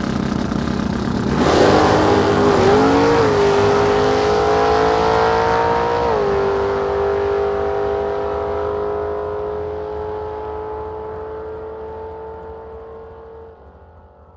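Outro sound effect for a channel logo: a sudden whoosh about a second and a half in, then a revving engine-like tone that climbs slowly, drops sharply about six seconds in, and holds steady while fading away.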